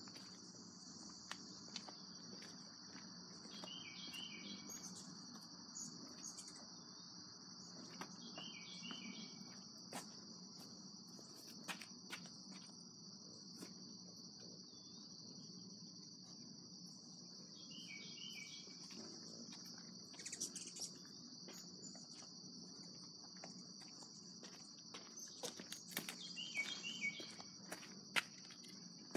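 A steady, high-pitched chorus of insects, over a low steady hum from an air conditioner. A short bird call repeats four times, and a cluster of light knocks and clicks comes near the end.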